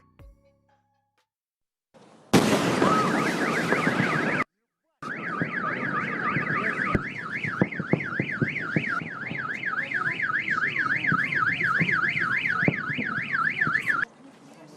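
A loud warbling alarm tone over a noisy rush, its pitch swinging up and down about three to four times a second. It breaks off for half a second early on, resumes, and stops abruptly near the end.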